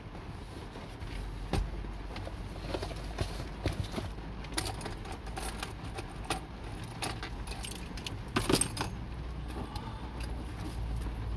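Paper fried-chicken box and its wrapping rustling and crackling as they are handled, in irregular crinkles with the loudest burst of crackling about eight and a half seconds in. A low steady vehicle hum runs underneath.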